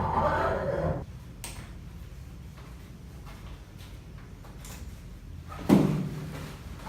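Workshop handling noise: a few light clicks, then a single sharp thud a little before the end with a short low ring after it.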